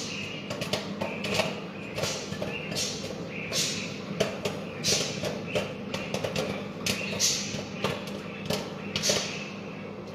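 Microwave popcorn popping in a running microwave oven: irregular sharp pops, several a second, over the oven's steady hum.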